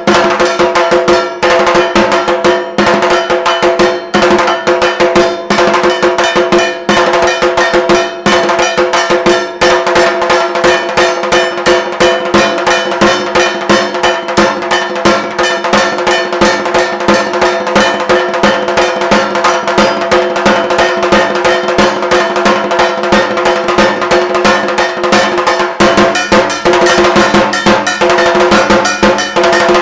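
Dhak drums beaten with thin sticks in a fast, unbroken rhythm, with a small bell-metal gong (kansar) clanging and ringing along. This is the dhak rhythm played while the Durga idol is being made.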